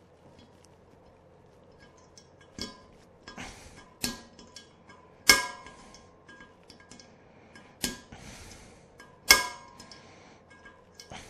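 Hammer striking a centre punch to mark a hole for drilling: about five sharp metallic taps with a short ring, a second or more apart, the loudest about five and nine seconds in.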